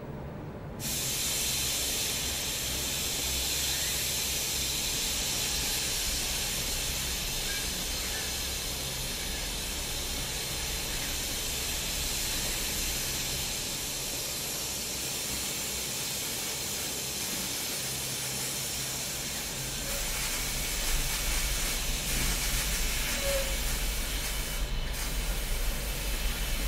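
Steady hiss of paint-spraying robots working on a car body in a paint booth, over a low machine hum. A deeper rumble comes in about twenty seconds in.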